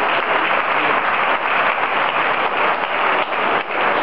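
Arena crowd applauding after a table tennis point, a dense, steady patter of many hands clapping.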